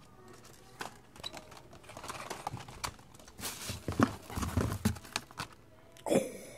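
Plastic blister packs of die-cast toy cars being handled and pulled off metal store peg hooks: irregular clicks, clacks and rustling, busiest around the middle, with a couple of sharper knocks near the end.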